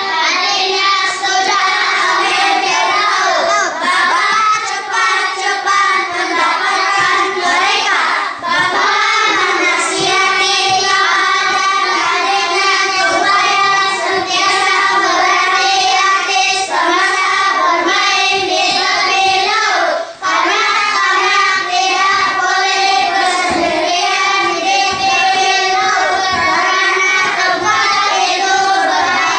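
A class of young children reading a Malay passage aloud together in a drawn-out, sing-song unison chant, with many voices holding each syllable, briefly dipping about two thirds of the way through.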